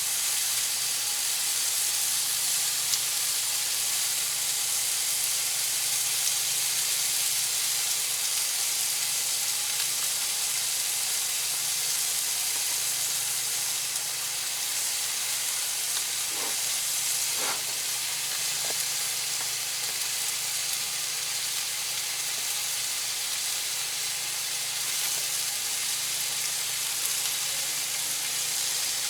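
Striped bass fillet frying in a pan, a steady sizzle with the skin stuck to the pan for lack of oil. Three brief higher sounds come about halfway through.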